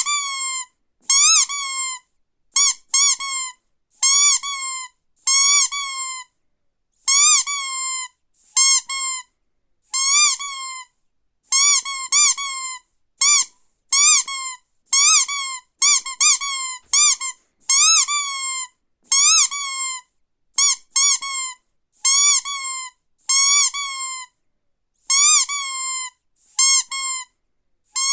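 Squeaky dog toy squeezed again and again: a long run of short high squeaks, some single and some in quick pairs, each bending up and down in pitch.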